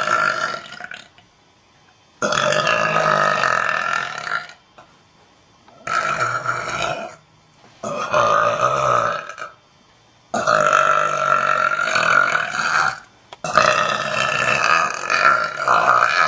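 A woman belching: a string of about six long, drawn-out burps, each lasting one to two and a half seconds, with short pauses between them. The last one runs on past the end.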